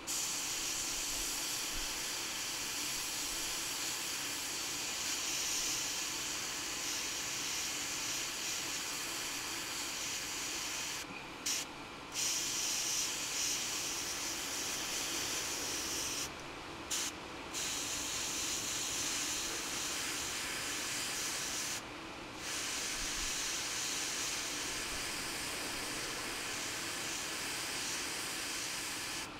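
Gravity-feed airbrush spraying paint: a steady hiss of air, cut off briefly about five times as the trigger is let go.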